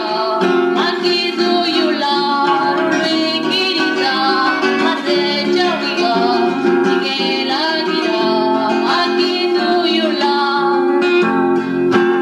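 A woman singing a Zapotec song to a plucked acoustic guitar, her voice gliding between notes over the guitar.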